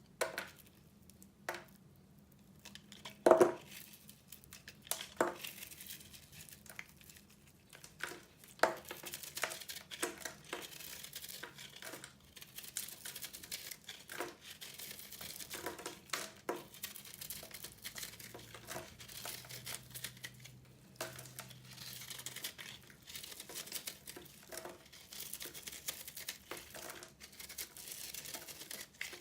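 Microwave-puffed soap being crushed, crunching and crackling. It starts as a few separate sharp cracks, the loudest about three and a half seconds in, and from about eight seconds in turns into dense, continuous crinkling crackle.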